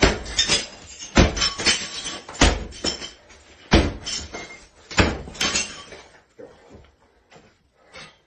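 Sledgehammer smashing into built construction work: five heavy blows about a second and a quarter apart, each followed by crashing and clattering of breaking material, then a few faint knocks near the end.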